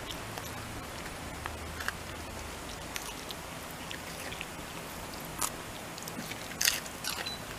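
Shiba Inu biting and chewing green leaves, a scatter of short soft crunches and clicks with the loudest near the end.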